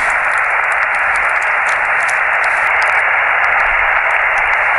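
Steady mid-pitched hiss of static from a portable QRP ham radio transceiver's speaker, receiving with no station coming through.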